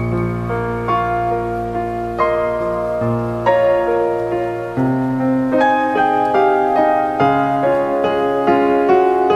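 Background piano music: a slow melody of single notes over held chords, moving to a new chord about halfway through.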